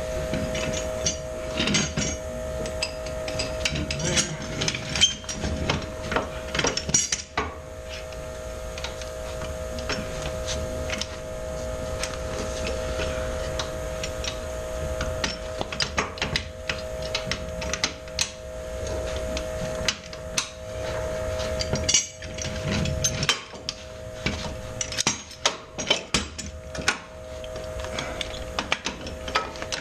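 Irregular metal clanks, knocks and scrapes of steel three-point hitch parts and pins being fitted to a Kubota BX25 subcompact tractor, over a steady whine that cuts out briefly a little past the middle.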